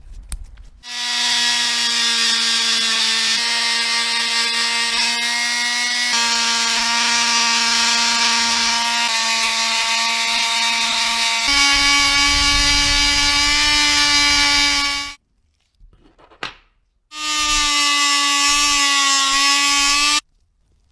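Small handheld electric power tool running at a steady high whine. It starts about a second in and steps slightly higher in pitch about halfway through. It stops, then runs again for about three seconds after a short pause with a click.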